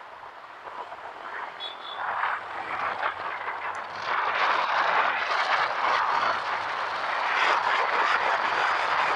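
Wind rushing over the microphone of a moving motorcycle, with the bike's engine faintly underneath. It grows louder over the first four seconds as the road opens up, then stays loud and steady.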